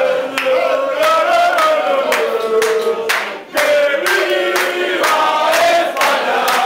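A group of men singing a chant together, clapping in time at about two claps a second, with a short break about three and a half seconds in.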